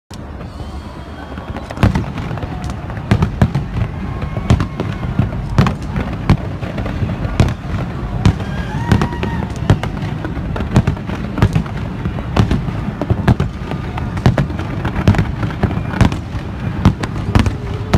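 Fireworks display: an irregular barrage of sharp bangs, several a second, over a continuous low rumble of overlapping booms.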